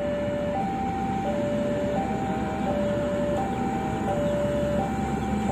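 Level-crossing warning alarm sounding a steady two-tone signal, alternating high and low about every 0.7 seconds, over the low diesel rumble of a Plasser track-maintenance machine approaching on the rails.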